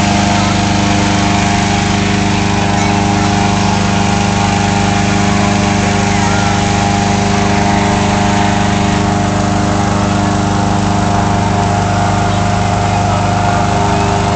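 A small engine running steadily at constant speed, its pitch unchanging.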